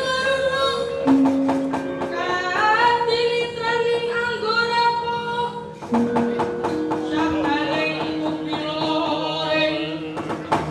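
Javanese gamelan playing with a voice singing a bending melodic line over steady ringing metal tones, with sharp knocks now and then.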